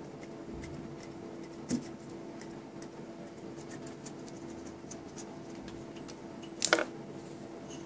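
Light scratching and handling noises as fingers turn a freshly threaded Delrin part held in a lathe chuck, with a sharp knock near the start and a louder clatter near the end, over a steady hum.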